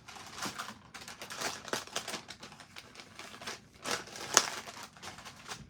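Close-up handling sounds at a craft table: an irregular run of scratchy rustles, crinkles and light scrapes, with one sharper, louder stroke about four and a half seconds in.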